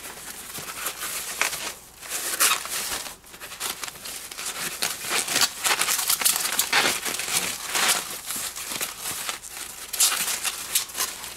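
Foam packaging being pulled off and unwrapped from an RC wheel: continuous crinkling and rustling with irregular crackles.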